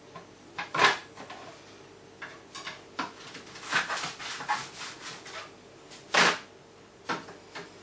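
Irregular knocks, clicks and clatter of bait-making equipment and bowls being handled on a tabletop, with two louder knocks about a second in and just after six seconds.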